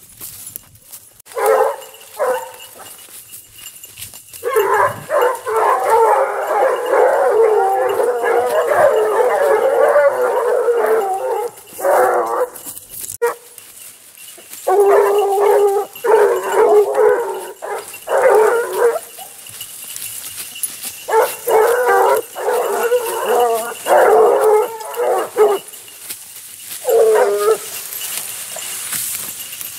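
A pack of grand basset bleu hounds giving tongue together on a scent. Their overlapping baying comes in long bursts that break off and start again several times, with a few lone calls at the start.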